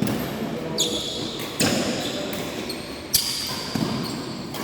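Badminton rally in a sports hall: sharp racket strikes on the shuttlecock, about one every second and a half, ringing on in the hall. Player footwork on the court falls between the strikes.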